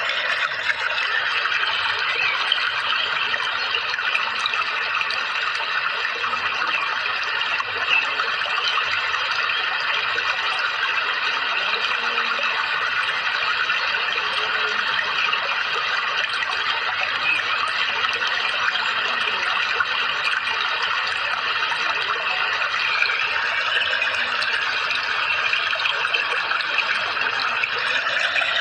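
Steady rush of flowing water, a continuous unbroken noise without pauses.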